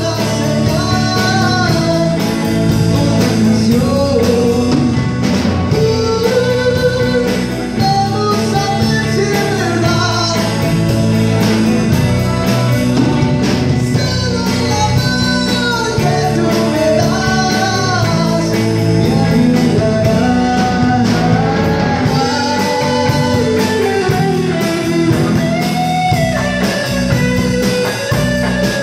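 Live blues-rock band playing: a harmonica cupped against a hand-held microphone carries the melody in bending notes over electric guitar and drums.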